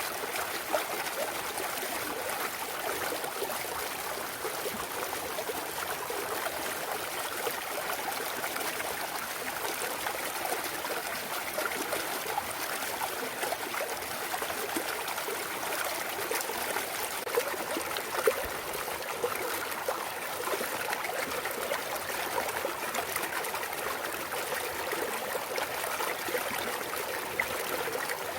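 A clear mountain valley stream trickling and burbling steadily over rocks, with a few brief, sharper splashes.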